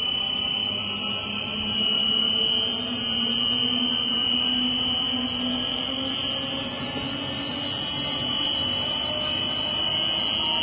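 1600-litre double sigma blade kneader mixer running with its discharge screw turning in reverse: a steady motor hum with a steady high-pitched whine over it.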